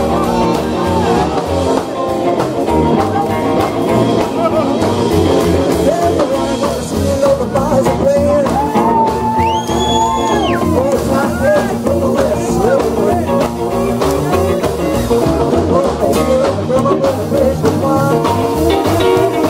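Live rock and roll band playing: a man singing into a microphone over upright double bass, electric guitar and drums, with one long held note about halfway through.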